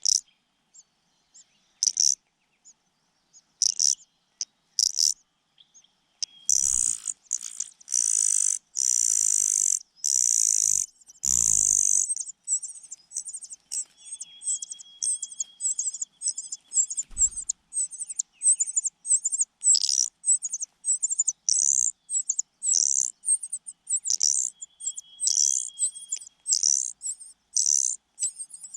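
Young birds, among them a cuckoo chick, begging for food with rapid, high-pitched cheeping calls. Several longer, harsh hissing cries come in a cluster about a quarter of the way in.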